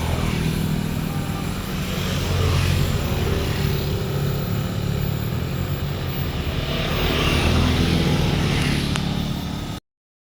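Diesel locomotive of a train running, a steady low engine drone that swells twice, then cuts off suddenly near the end.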